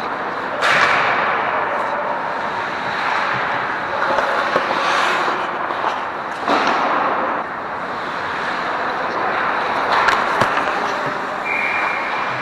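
Ice hockey play on a rink: skates scraping and carving the ice under a steady hiss, with sharp cracks of stick and puck, the loudest about a second in, around six and a half seconds and about ten seconds in.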